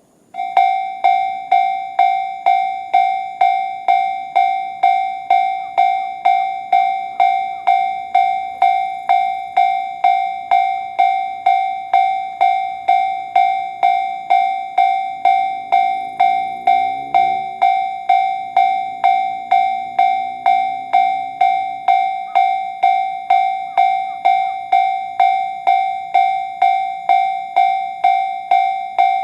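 Japanese railway level-crossing warning bell, the JR standard electronic ding tone, starting up and striking about one and a half times a second, evenly and without pause. It signals that a train is approaching.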